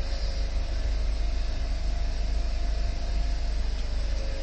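Steady mechanical hum with a low rumble and an even hiss, holding level with no distinct events.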